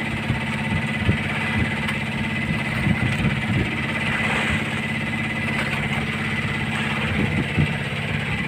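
A small engine aboard an outrigger fishing boat running steadily, an even hum with no change in speed, with a few light knocks over it.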